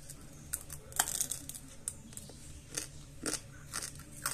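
Dry vermicelli sticks being bitten and chewed: a string of short, sharp, irregular crunches.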